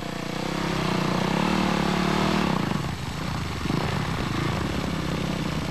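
Enduro motorcycle engine running under load, its pitch climbing over the first two seconds or so, then dropping away and running on more unevenly.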